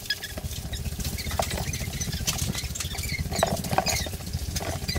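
Handling noise and footsteps from a hand-held camcorder being carried while walking, with a dense rustle and many small clicks and short squeaks.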